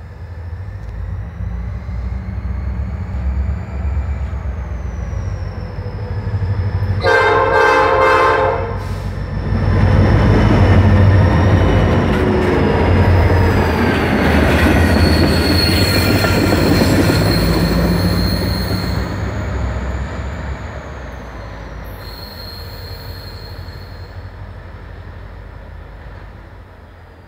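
Norfolk Southern freight train with two diesel locomotives approaching and passing close by. The engines' rumble builds, one horn blast of under two seconds sounds about seven seconds in, and the locomotives and cars are loudest as they go by, with a thin high wheel squeal at times. The sound then fades as the train moves away.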